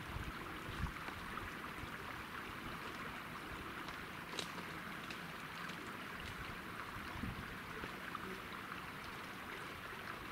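Steady rushing of a small mountain stream, with a few faint clicks.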